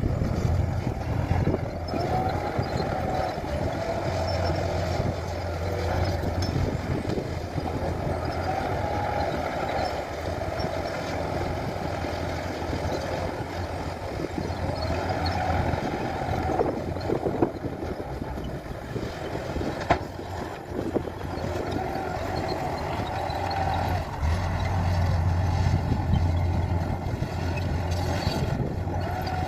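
Bulldozer's diesel engine running under load while pushing soil, its note rising and falling as the load changes. A single sharp knock about two-thirds of the way through.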